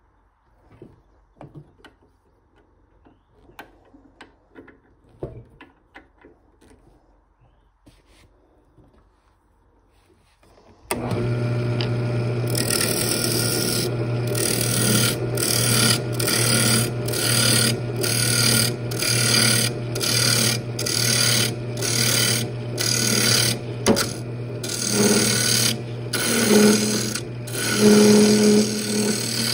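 Wood lathe: a few faint clicks of handling, then about 11 seconds in the lathe motor starts and hums steadily. From there a hand-held turning tool cuts the spinning wooden lid in repeated passes, about one a second, with short breaks between them.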